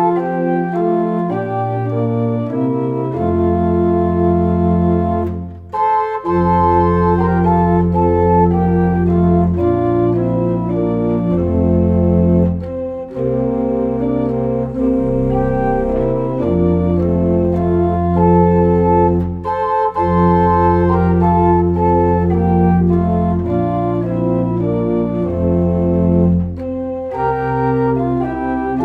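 Organ music: sustained chords over a deep pedal bass, changing every second or two, with short breaks between phrases about six seconds in and again near the end.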